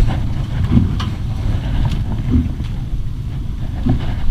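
Wind buffeting the camera's microphone aboard a small fishing boat: a steady low rumble with irregular flutter, with a few faint knocks.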